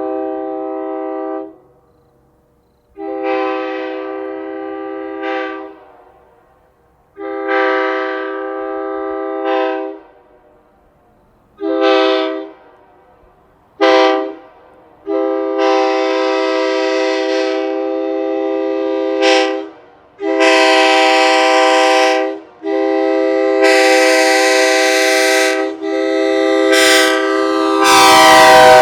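Nathan AirChime K3HA three-chime train horn on a truck, blown in about nine blasts of a sustained chord: short and medium toots at first, then long blasts nearly back to back. Near the end a rush of noise comes in and the chord drops slightly in pitch.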